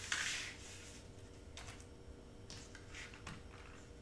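Sheet of cardstock rustling and sliding on a cutting mat, then a few faint soft clicks and taps from handling it.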